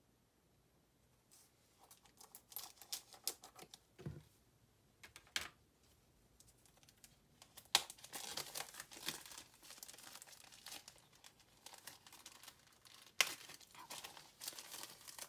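Packaging crinkling and tearing as an eyeshadow palette is unwrapped by hand, in irregular crackles that begin about a second in and grow busier in the second half. A dull knock comes about four seconds in.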